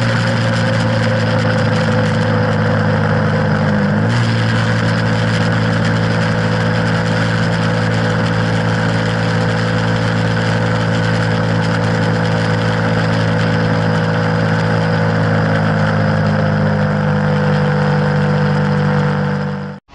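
KTM Duke 125's single-cylinder engine running steadily at high revs under a steady rush of wind and road noise while riding at speed. The sound fades out right at the end.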